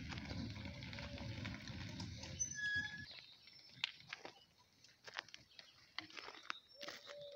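Gravel crunching for about three seconds, then quieter with scattered small clicks. Short bird calls come through, with low cooing near the end.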